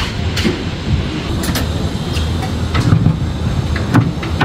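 Construction-site noise: a steady low rumble with scattered sharp metal clicks and knocks from steel formwork and rebar being handled.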